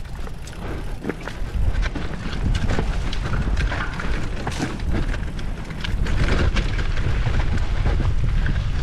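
Wind buffeting the camera microphone as a mountain bike rolls along a dirt trail, with tyre noise and scattered clicks and rattles from the bike and trail. The rush grows louder about six seconds in.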